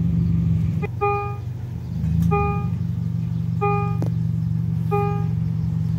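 Railway level-crossing warning bell sounding a short electronic ding, repeating about every one and a half seconds, which signals that the barriers are down for an approaching train. A steady low hum runs beneath it.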